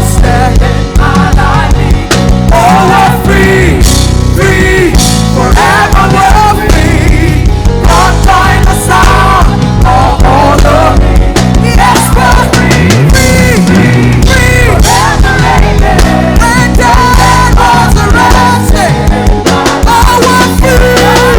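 Live worship band playing, with guitar and a steady full band sound, and bending melodic lines that may be voices singing softly.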